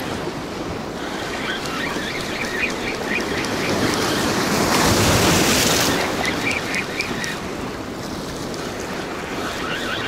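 Rough sea surf washing over breakwater rocks, swelling to its loudest about five seconds in, with wind on the microphone. A spinning reel is cranked in over it, giving short runs of faint rapid ticking.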